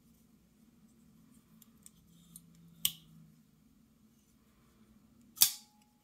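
Spring-assisted folding knife's blade and lock mechanism clicking: two sharp metallic snaps about two and a half seconds apart, the second louder, with light ticks of handling in between.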